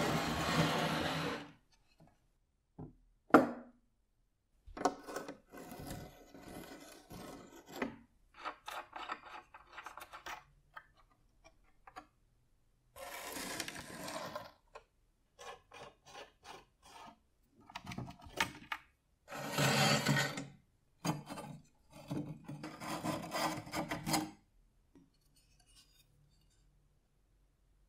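Wooden and cast-iron parts of an 1883 Tucker & Dorsey meat slicer being handled and taken apart on a workbench, with wood scraping and sliding and a wrench working a nut. The sounds come in short separate bursts with silent gaps, and a sharp knock about three seconds in.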